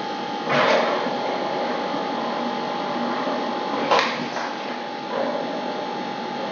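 Steady mechanical hum with a constant whine, broken by three short rushes of noise, the loudest about four seconds in.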